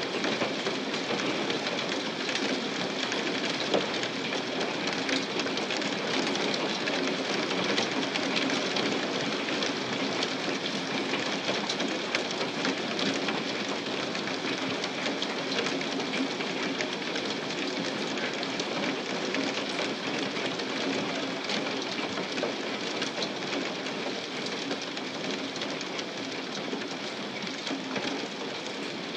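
Hailstones pelting a lawn and patio: a dense, steady clatter of countless small hits.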